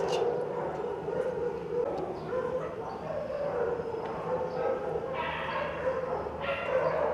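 Several kennelled dogs whining and yelping: a steady, wavering whine throughout, with louder yelps about five seconds in and again near the end.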